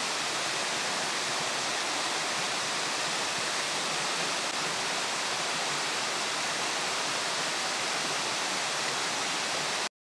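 Waterfall cascading down sloping rock slabs, a steady hiss of falling water. It stops abruptly near the end.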